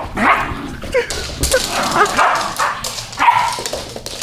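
A Siberian husky and a small dog play-fighting, with a rapid run of short yips and barks.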